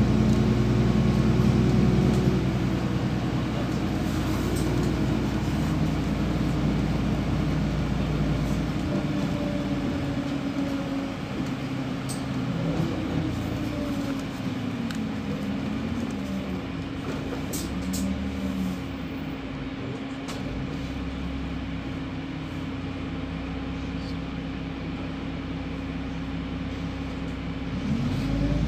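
Interior sound of a LiAZ 5292.67 city bus under way: the engine and drivetrain run with a steady low hum. The rumble eases after about eight seconds and picks up again near the end as the bus speeds up.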